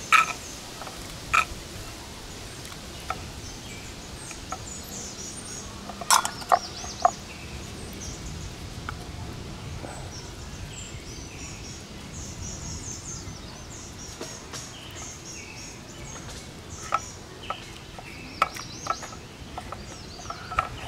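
Small birds chirping in quick high notes, with scattered sharp clicks, loudest in a cluster about six seconds in and again near the end.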